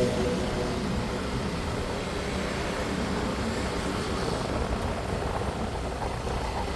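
A vehicle running, a steady rumble with hiss.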